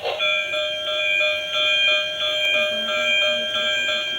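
Battery-powered toy metro train switched on and playing its electronic sound effect: a steady siren-like tone of several pitches, pulsing evenly.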